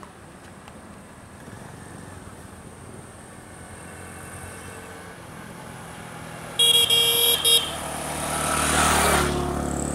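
A road vehicle approaches and sounds its horn in a short series of toots about seven seconds in, then drives past close by, its engine and tyre noise swelling and fading.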